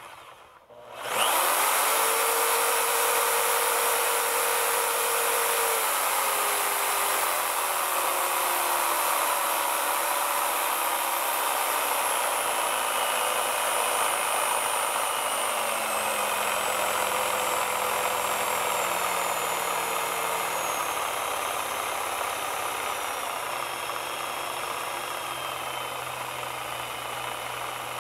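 Bosch GST90BE/N jigsaw switched on about a second in and running steadily, a loud motor noise with a whine that slowly falls in pitch.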